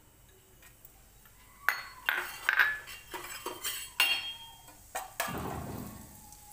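Kitchen utensils clinking: a steel spoon knocking against glass bowls and the pan in a quick run of sharp clinks with short ringing. About five seconds in, the clinks give way to a softer rushing noise that fades.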